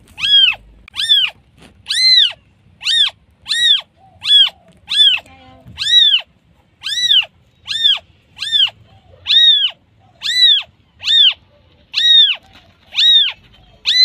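A newborn kitten meowing over and over, calling for its mother: short, high-pitched cries that rise and fall, about three every two seconds.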